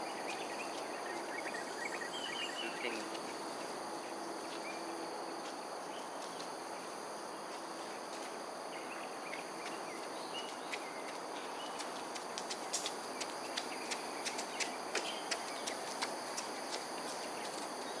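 Dawn outdoor ambience: steady high-pitched insect chirring over a constant background hum, with a few short bird chirps. A run of sharp clicks comes in the last third.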